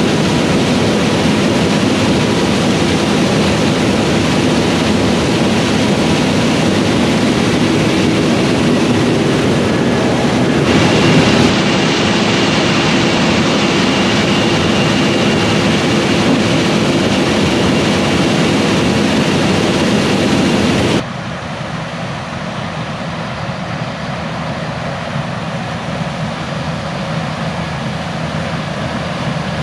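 Fendt Ideal 8 combine with a 12-row Drago corn head running while harvesting corn: a steady, dense machine din with a few steady whining tones. The sound changes abruptly about 11 seconds in, and about two-thirds of the way through it suddenly drops to a quieter, duller level.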